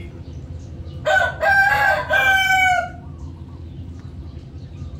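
A rooster crowing once, a loud call of about a second and a half in three joined parts, the last one drawn out and falling slightly at the end.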